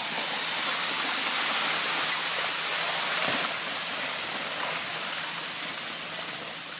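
Rockslide: loose rock and debris sliding and tumbling down a cliff face, a continuous rushing hiss that swells at the start and slowly dies away near the end.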